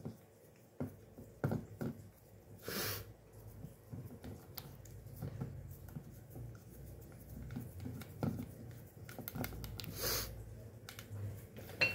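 Faint tapping and scraping of fingers pressing pie-crust dough into an aluminium tube pan, with two louder breaths, about three seconds in and near ten seconds.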